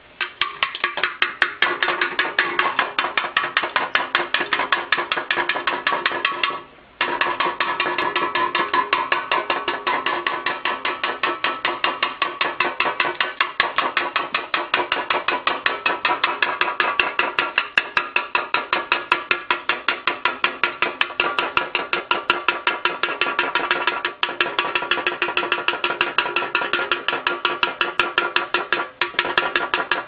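Cockatiel rapidly pecking a metal drink can, making fast, even taps with a ringing metallic tone that keeps going under them. The tapping stops briefly a few times, once about seven seconds in and again near the end.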